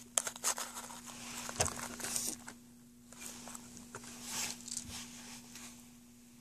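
Light handling sounds: rustling and a few soft knocks as a small wrapped cardboard chocolate box is set down on a table, over a faint steady hum.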